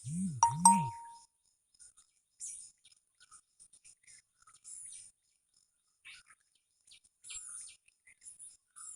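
Small wild birds giving short, high chirps and calls on and off. In the first second there is a louder double sound with a brief ding-like ring, the loudest thing here.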